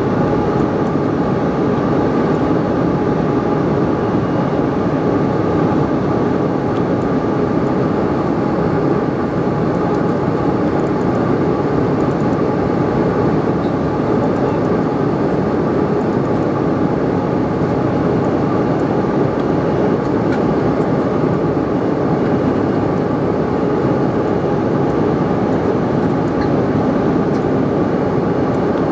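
Steady cabin noise of a Bombardier CRJ-700 climbing after take-off: the rush of its rear-mounted General Electric CF34 turbofans and airflow, with a faint steady whine over it.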